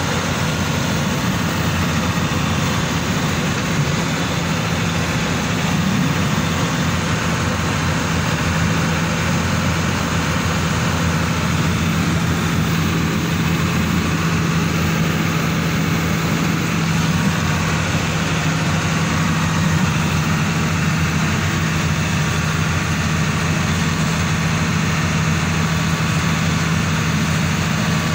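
A vehicle's engine running at a steady pitch, heard from inside the vehicle as it drives, over a constant rush of road noise.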